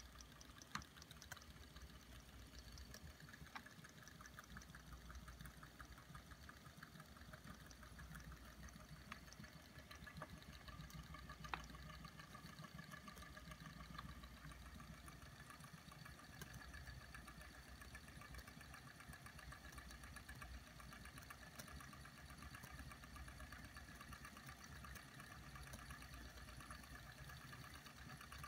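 Two small flame-eater (vacuum) engines with glass cylinders and pistons running together, a faint, fast, even clatter of their valves and pistons. A few sharper clicks stand out near 1 s, 3.5 s and 11.5 s.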